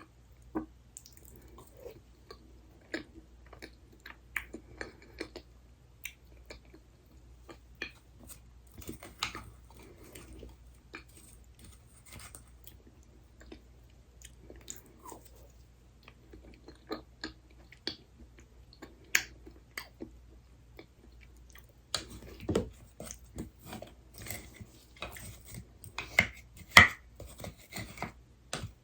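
Close-miked chewing and mouth sounds of a person eating soft desserts, with many small wet clicks. A few louder sharp clicks and taps come in the last third.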